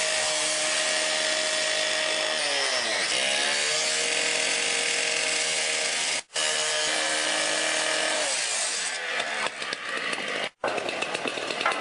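Petrol cut-off saw with an abrasive disc running at high revs and cutting through a metal pipe; the engine pitch sags twice as the blade bites and loads up. The sound breaks off briefly twice, and near the end the cutting turns rougher and grittier.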